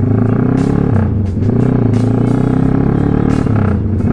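Motorcycle engine and exhaust running steadily at a cruising speed while riding.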